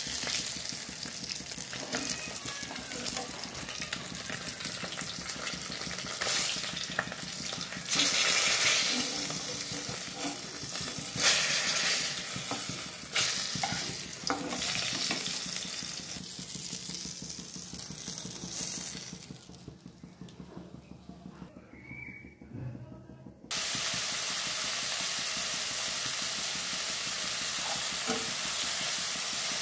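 Hot oil sizzling in a frying pan as fish steaks fry and are moved with a metal spatula, with scrapes and clicks. It drops off for a few seconds near the end, then a steady sizzle of sliced onions frying in oil starts suddenly.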